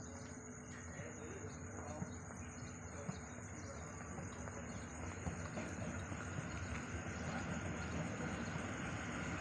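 Crickets trilling steadily, over the low rumble of an approaching train that grows slowly louder.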